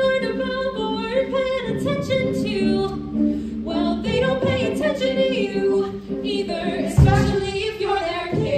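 Singers of a stage musical's cast singing a number together, over steady low accompaniment notes, with a low thump about seven seconds in.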